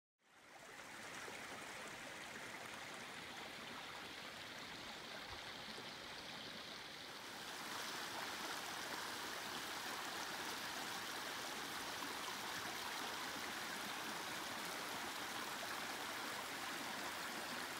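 A mountain creek running over rocks and boulders: a steady rushing and gurgling of water. It fades in at the start and grows louder and hissier about seven seconds in.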